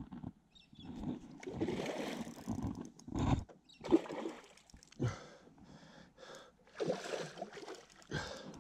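A hooked carp thrashing at the surface beside a small boat, in irregular bursts of splashing and sloshing water.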